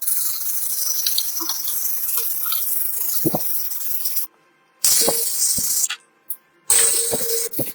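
Hissing spray in three spells: one of about four seconds, then two short ones of about a second each.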